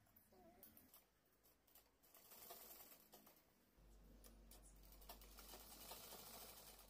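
Faint rustling of cloth being handled, then a sewing machine's motor starts about halfway through and runs with a low steady hum as the fabric is fed under the presser foot.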